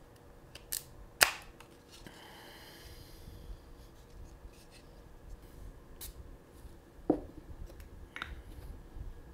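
Hard plastic clicks and knocks as 3D-printed skeleton parts are handled and pressed together, the sharpest click about a second in, with a short soft hiss around two to three seconds in.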